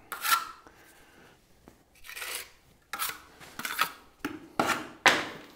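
Small plastering spatula scraping across wet travertine plaster, smoothing it into a corner in about six short, separate strokes.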